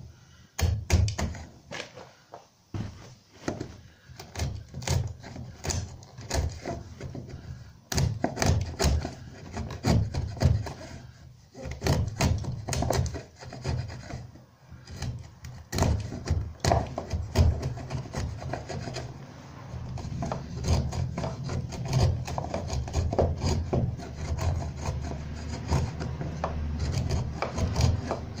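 Hand tool scraping and shaving the end of a new pine block spliced into the foot of a door frame: an irregular run of short rasping strokes with a few brief pauses.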